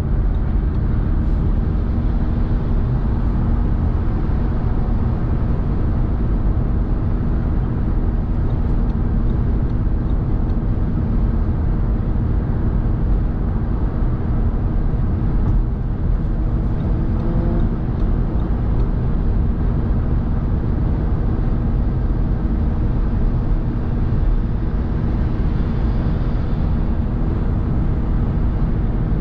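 Car driving at motorway speed: a steady rumble of tyres on the road and engine noise, with a low even hum.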